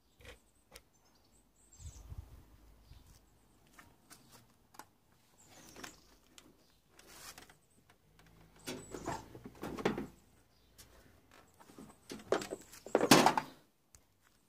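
Clicks, knocks and scraping of a hand tool and hands on the plastic tub and cabinet of a washing machine being dismantled, with short clattering bursts about nine and ten seconds in and the loudest about a second before the end.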